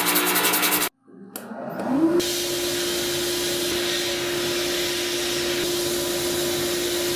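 An electric power tool's motor starts about a second in, its whine rising in pitch for about a second before settling into a steady run. Before it, a rhythmic noise stops abruptly.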